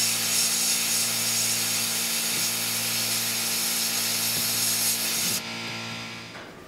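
Sandblast cabinet gun blasting abrasive grit onto a small metal hand tool, stripping it to bare metal: a loud, steady hiss of compressed air and grit over a steady hum. The hiss cuts off about five seconds in, leaving the hum, which fades.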